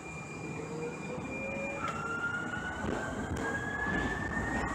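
Siemens S200 light rail vehicle's electric traction drive whining as the train accelerates, heard from inside the car over a low running rumble. A steady high tone gives way about two seconds in to a lower whine that rises steadily in pitch.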